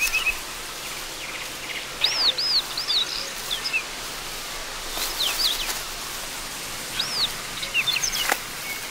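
Hen harrier nestlings begging with short, high-pitched arched chirps that come in small clusters of two or three notes, over a faint marsh background. There is a single sharp click near the end.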